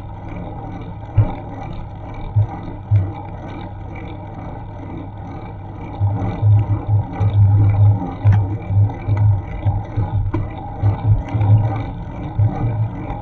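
Wind buffeting the microphone of a bike-mounted action camera while riding, as a rough, gusty rumble over a steady noise bed. The buffeting gets stronger and more frequent about six seconds in.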